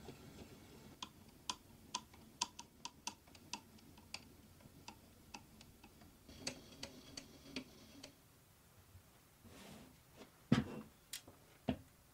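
Height-adjustment crank of a belt-driven aluminium planer jig being turned by hand, giving a run of light, uneven clicks, two or three a second, for the first half. Near the end come a few heavy knocks as the metal jig is handled and lifted.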